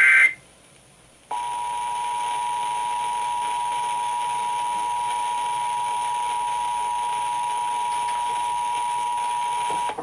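The tail end of an EAS SAME header data burst, then about a second of quiet, then the EAS two-tone attention signal (853 and 960 Hz together), played through an FM radio's speaker. The attention signal holds steady for about eight and a half seconds and cuts off just before the end. It marks the start of a required monthly test of the Emergency Alert System.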